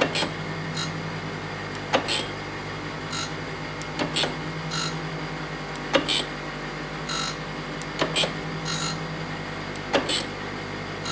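Jones & Shipman 540 surface grinder running with a steady motor hum. A sharp click comes about every two seconds as the reciprocating table reverses at its stops, and short hisses come as the undressed grinding wheel takes a shallow cut across a steel part.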